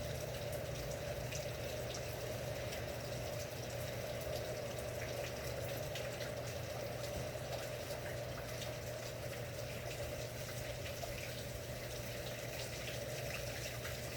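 Steady rain falling, a continuous watery hiss with scattered faint ticks of drops.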